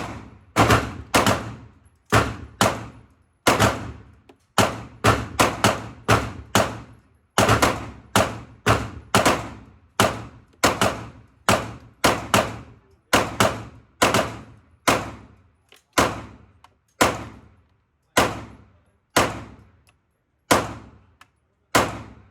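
A long string of 9mm pistol shots at an indoor range, about forty in all at roughly two a second, each sharp crack followed by a short echoing tail.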